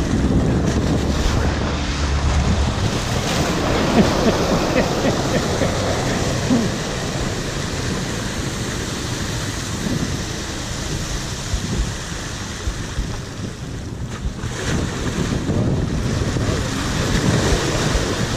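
Sea swell surging over concrete landing steps and water pouring and splashing back off them, with wind buffeting the microphone.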